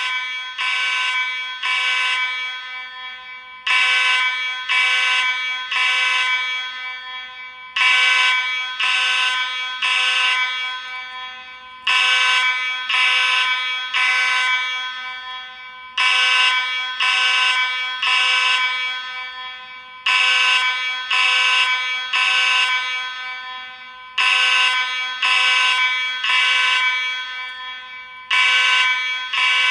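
Space Age AV32 fire alarm sounding in the temporal-three evacuation pattern: three harsh, buzzy blasts about a second apart, then a short pause, repeating about every four seconds.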